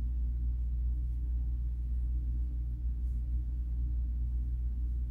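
Steady low electrical hum, with two faint clicks from a beaded bracelet being put on, about a second in and about three seconds in.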